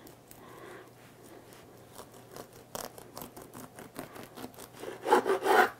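Bread knife sawing through the crust of a freshly baked whole wheat loaf: a run of fine crackling, rasping scratches, with a louder burst about five seconds in.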